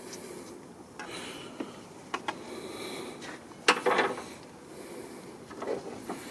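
Metal engine-oil dipstick being handled and wiped on a cloth shop rag: soft rubbing with a few light clicks, and a sharper knock near the middle.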